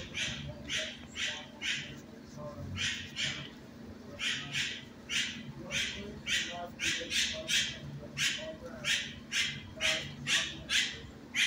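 Dog crunching kibble: short, crisp chewing crunches about two a second, in runs broken by brief pauses.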